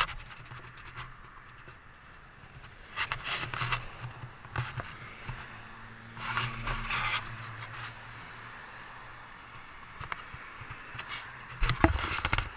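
Roadside ambience: a vehicle passes with a low engine hum through the middle. Short scraping bursts come from the handheld microphone three times, the last and loudest near the end.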